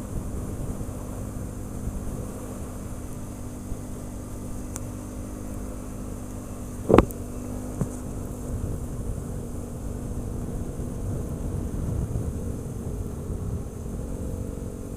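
ATV engine running steadily on the trail, with one sharp knock about seven seconds in and a fainter tick just after it.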